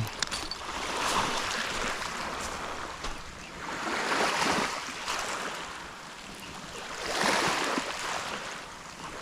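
Small waves washing against shoreline rocks, each wash swelling and fading about every three seconds, three in all. A brief sharp knock comes right at the start.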